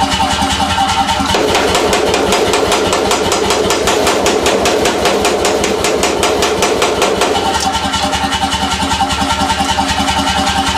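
Power hammer running and striking in a fast, even rhythm, with a steady mechanical hum under the blows. The tone thickens from about a second in until about seven and a half seconds in.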